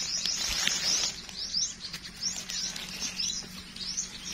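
A forest bird singing a series of short, high, arching chirps, about two or three a second.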